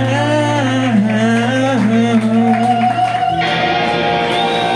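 Live rock band playing loud: a male voice sings a wavering held line over a sustained low bass note and electric guitars, then about three seconds in the band switches to a new chord that rings on with held guitar notes, closing out the song.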